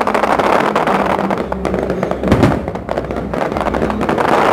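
Fireworks going off: a dense, continuous crackle of small bursts, with one heavier boom a little over two seconds in.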